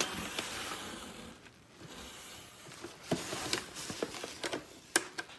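Rustling followed by scattered light clicks and knocks, as of objects being handled.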